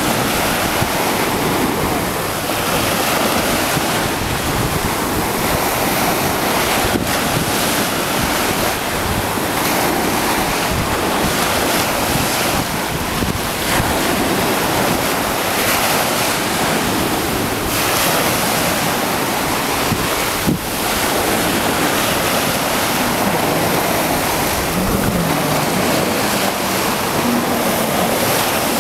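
Sea surf and wind buffeting the microphone, a steady loud rush. In the last few seconds a faint low engine drone wavers up and down, from a jet ski out on the water.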